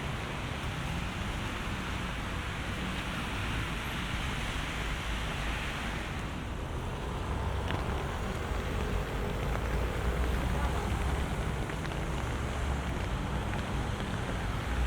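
Storm wind and rain: a steady rushing noise with a low rumble of wind buffeting the microphone, growing a little stronger about halfway through.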